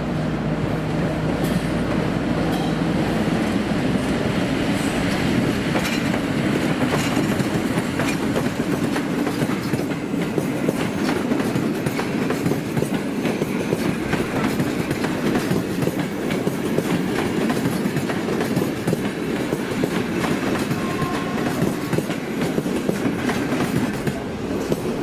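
EP07 electric locomotive passing with a train of PKP Intercity passenger coaches. The coaches roll by with a steady, loud rumble and a continual clatter of wheels over rail joints.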